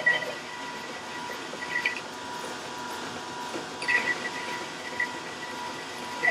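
1941 South Bend 13-inch lathe running while the cutting tool faces the shoulder of a hard steel sawmill blade guide roller. A steady high-pitched whine, with short bursts of cutting noise about two and four seconds in.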